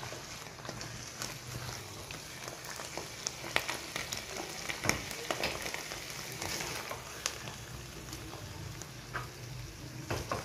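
Cooked spinach and lotus stem sizzling faintly in a hot non-stick pot, with a spoon scraping and tapping against the pan in irregular clicks as the greens are scooped out onto a plate.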